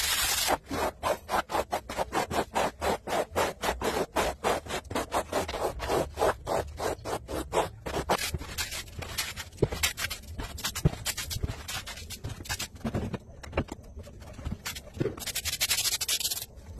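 Stiff-bristled floor broom scrubbing a wet, soapy concrete floor in quick back-and-forth strokes, about four to five a second. About halfway through the strokes turn slower and uneven.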